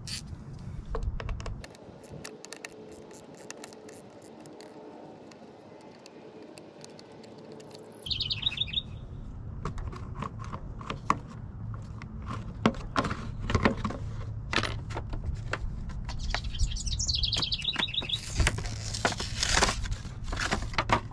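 Birds chirping in two short rapid bursts, over sharp clicks and rattles of hands unscrewing and lifting off the plastic air filter cover on a push mower's Briggs & Stratton engine.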